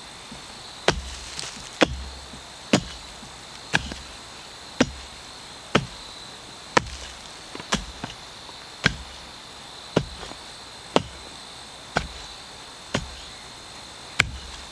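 A hand digging tool chopping through tree roots and soil in a trench, with sharp strikes in a steady rhythm of about one a second, fourteen in all.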